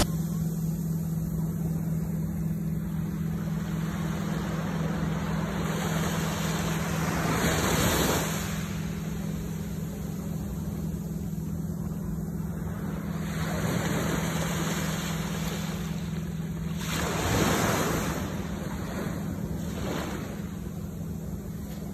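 Ocean surf washing up a sandy beach, with louder wave surges about seven and seventeen seconds in.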